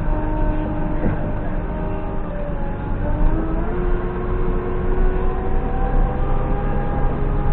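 JCB backhoe loader's diesel engine running under load, its pitch stepping up about three seconds in and then climbing slowly as the revs rise.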